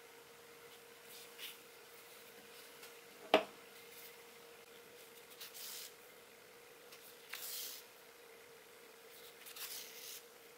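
Short soft rustles of black yarn being drawn through a crocheted amigurumi body while an eye is stitched on, three pulls a couple of seconds apart. A single sharp click comes about three seconds in, and a faint steady hum runs underneath.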